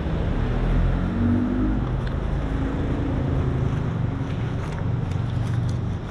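A motor vehicle's engine running close by, a low hum whose pitch shifts a little, loudest about a second in.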